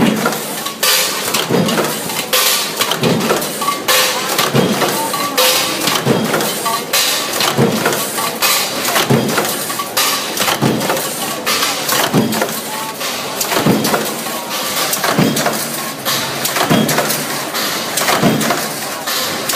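Mechanical stamping press forming steel junction boxes, striking in a regular rhythm of metallic clanks a little more than once a second over steady factory machine noise.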